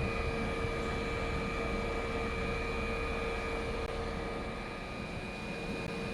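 Steady hum with a constant high whine from an electric train's on-board equipment as it stands in the station, after the wheel noise has died away. A low rumble sits beneath and eases slightly near the end.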